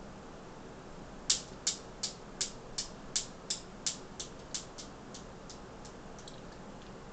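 Newton's cradle's steel balls clacking, knocked swinging by a kitten's paw: a sharp click about a second in, then an even train of clicks nearly three a second that grows fainter and dies away over about five seconds.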